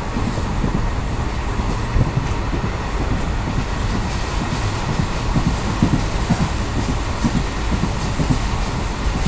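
Indian Railways ICF passenger coach running along the track: a steady rumble of wheels on rails with many irregular low knocks.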